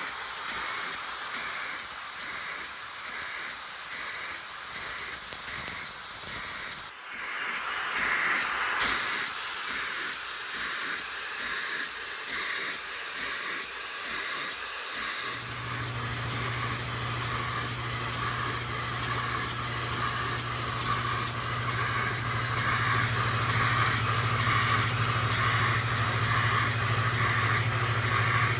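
Model beam engine running on compressed air: a steady hiss of air with a regular exhaust beat as the engine cycles. A low steady hum joins about halfway through.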